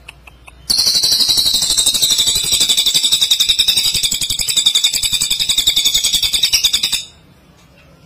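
Cililin (crested jay) giving a loud, continuous rapid rattle lasting about six seconds; it starts under a second in and cuts off suddenly about a second before the end.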